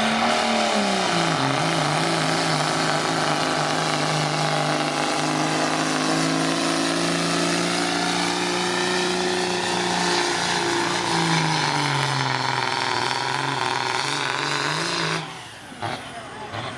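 Dodge diesel pickup truck's engine running at full throttle under load while pulling a sled, its note dipping and rising several times, then cutting off abruptly about 15 seconds in.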